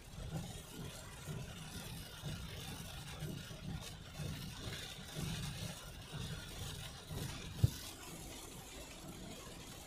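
Heavy rain and wet-road noise heard from inside a moving vehicle: rain on the car and tyres running on the flooded highway, with a low, uneven rumble underneath. A single sharp thump about three-quarters of the way through.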